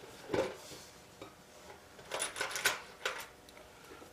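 Small metal parts clinking and tapping against an aluminium fixture plate as a workpiece is positioned and bolted down by hand. There is a single clink about half a second in, a quick run of clinks around two seconds, and another near three seconds.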